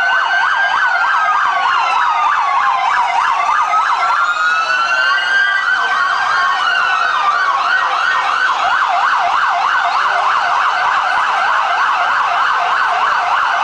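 Several police sirens sounding at once to clear a crowd from the street. A fast yelp sweeps up and down several times a second over slower wails that rise and fall every few seconds.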